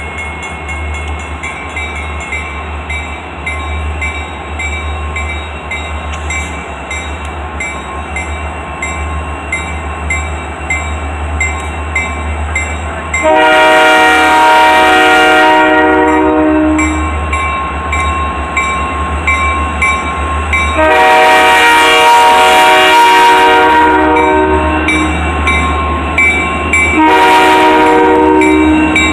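Maine Central (Pan Am Railways) diesel locomotive 518 approaching a grade crossing, its engine rumbling low and steady. It sounds its multi-note air horn for the crossing: a long blast about halfway through, another long blast a few seconds later, and a shorter one near the end.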